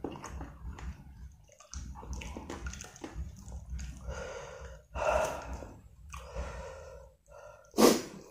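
A man chewing instant noodles in soup close to the microphone, with wet mouth clicks and heavy breathing between mouthfuls. A louder breathy sound comes about four to five seconds in, and a short sharp sniff comes near the end, over a low steady hum.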